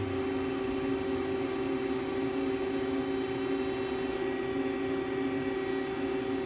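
Lathe running with its coolant spraying: a steady machine hum with several fixed tones.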